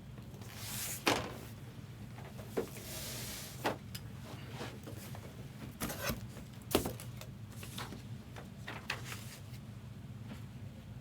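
Trading cards and card holders being handled and sorted: short sliding rustles and light clicks and taps at irregular moments, over a steady low hum.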